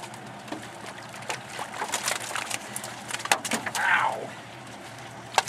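Live muskies splashing and sloshing in a water-filled stock tank as they are handled, with scattered sharp knocks and clunks on the boat's metal hull.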